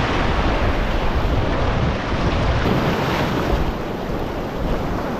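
Ocean surf washing in and breaking around the angler's legs, with wind rumbling on the microphone.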